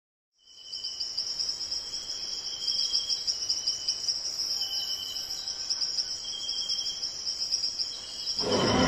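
Crickets chirping in a steady high trill, with a lower trill coming and going. It fades in after a moment of silence. Just before the end, a louder sound with low tones comes in over it.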